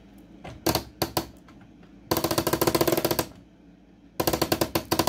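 LEGO crank, gears and chain-link track clicking rapidly as the crank is turned to haul the drop-tower car up. There are a few separate clicks, then two stretches of fast rattling clicks, the second starting about four seconds in.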